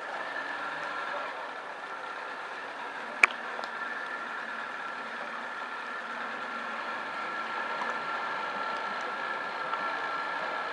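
Distant small racing boat's outboard engine running at steady high revs, a thin even whine held throughout. A single sharp click about three seconds in.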